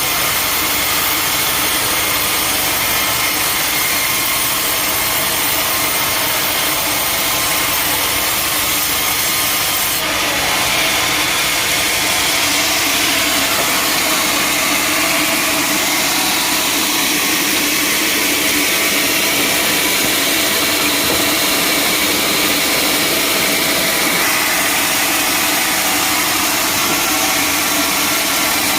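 Sawmill saw running steadily through a log, a continuous loud cutting noise with a machine drone underneath; the cut turns brighter and hissier about ten seconds in.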